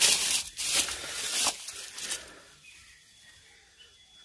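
Crunching of dry leaves and twigs underfoot: four steps in the first two seconds, then quiet.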